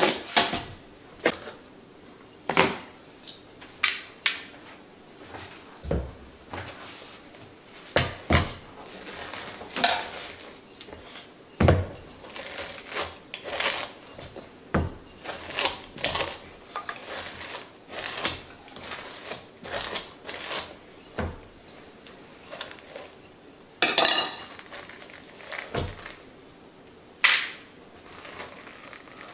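A hard pumpkin being cut open and scraped out: a knife working through the shell, then a scoop and hands scraping seeds and stringy pulp from inside. Short, irregular scrapes and knocks with pauses between them.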